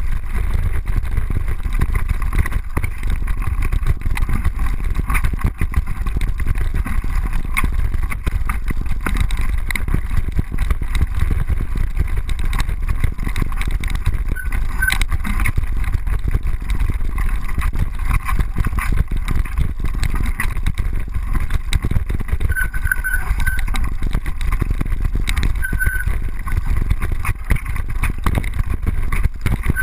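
GoPro camera rattling in its housing and mount on a mountain bike riding over rough dirt singletrack: a continuous loud clatter over a heavy rumble. It is the rattle of a bike-mounted GoPro used without its small white rubber anti-rattle insert.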